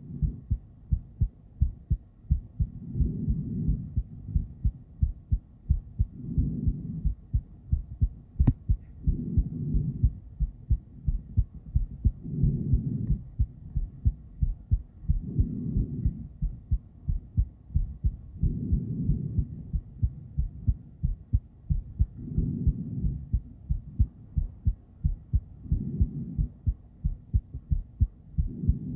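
A woman's heartbeat picked up by a handheld ultrasonic Doppler heartbeat monitor: a quick, regular train of low whooshing thumps. A louder swell of low noise rises and falls about every three seconds.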